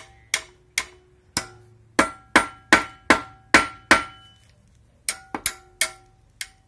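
Hammer striking steel, about fifteen sharp blows that each ring metallically, in two runs with a pause of about a second between them. The blows are aimed at a gearbox nut done up so tight that it will not come undone.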